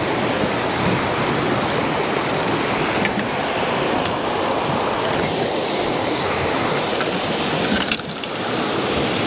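Ocean surf washing against shoreline rocks, a steady loud rush of water, with a few faint clicks.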